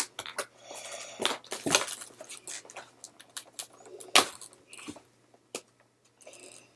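Plastic and cardboard toy packaging being handled and pried at: irregular clicks, crackles and short rustles, with one sharp click about four seconds in.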